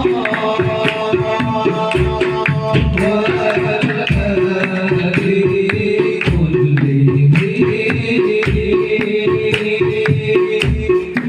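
Sholawat devotional music: hand drums beating a quick, steady rhythm with deep bass-drum thumps every second or two, under a held melody line.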